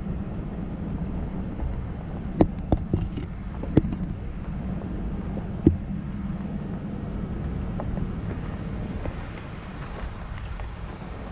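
A vehicle driving on a gravel dirt road, with a steady engine and tyre rumble. Several sharp knocks come between about two and six seconds in, as the vehicle jolts over the rough surface.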